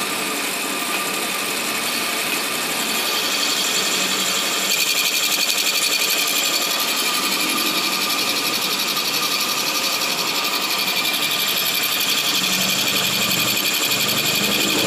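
Lathe running and boring out the inside of a new bush for a submersible motor, a steady mechanical clatter with a fine, very rapid rhythm. It gets somewhat louder about four to five seconds in.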